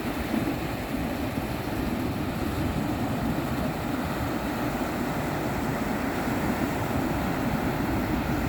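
Steady wash of ocean waves with wind on the microphone.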